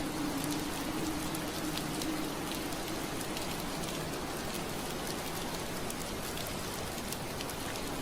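Steady rain on window glass, an even hiss with scattered sharper drop taps. A low steady hum underneath fades out about two or three seconds in.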